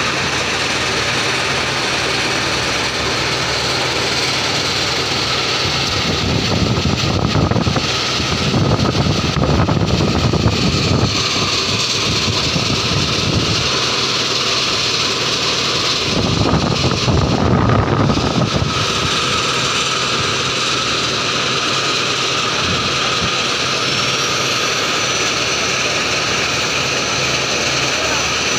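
Dump truck diesel engine running steadily, with two louder, rougher spells of a few seconds each, about six and sixteen seconds in.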